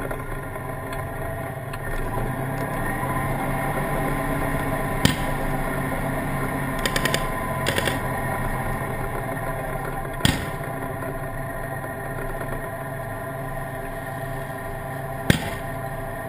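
Tank engine running steadily close to the microphone, its pitch rising slightly about two seconds in. Sharp cracks of gunfire cut through it: single shots about five, ten and fifteen seconds in, and two short rapid bursts around seven and eight seconds.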